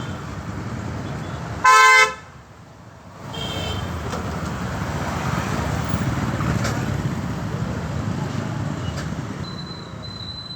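A vehicle horn gives one short, loud honk about two seconds in, followed by a steady wash of road traffic noise.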